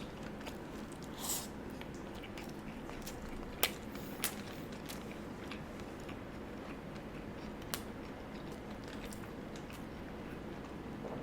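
Faint close-miked chewing of a burger and animal fries, with a few soft mouth clicks and smacks over a steady low hum.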